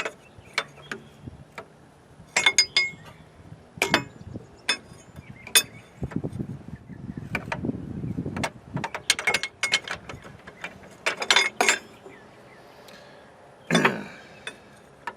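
Irregular metal clicks and clinks of a line wrench being worked on hydraulic line fittings, with a stretch of scraping and rustling in the middle.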